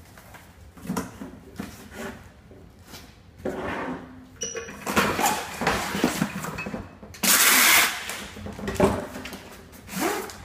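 Cardboard sheets being handled, slid and rolled into a triangle tube on a motorised tube-rolling tool: scattered knocks and rustles, with a short machine run about three and a half seconds in. About seven seconds in, packing tape is pulled off a handheld tape gun in one loud rasp lasting under a second.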